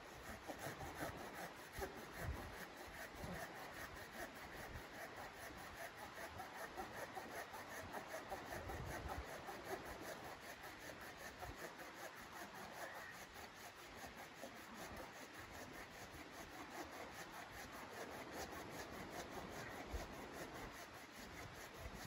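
Hand saw cutting through a wooden log, rasping in steady back-and-forth strokes.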